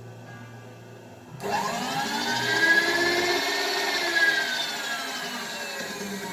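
Electric motor of a power tool starting up about a second and a half in. It runs with a whine that climbs quickly, then slowly drops in pitch as it keeps going.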